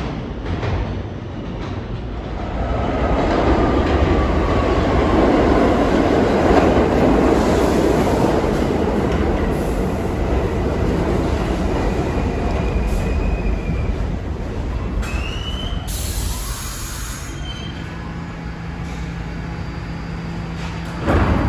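R68 subway train of the D line pulling into the station. The rumble of its wheels on the rails builds about three seconds in and eases as it slows, with short squeals from the wheels and brakes and a brief hiss. It then stands with a steady low hum, and a thump comes near the end.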